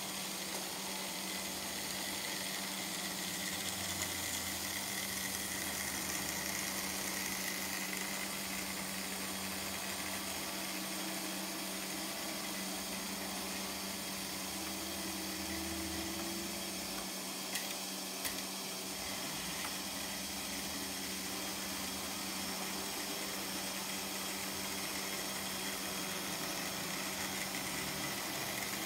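Analog Märklin H0 model trains running on K-track: a steady electric motor hum with wheel rumble and hiss. Two sharp clicks a little past halfway.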